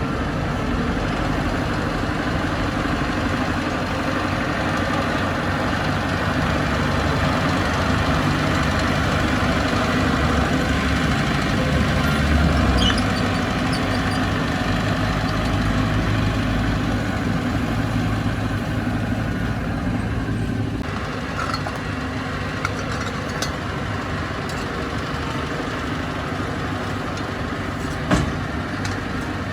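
Heavy diesel earthmoving machinery running with a steady low rumble, which eases off about two-thirds of the way through; a short sharp clank near the end.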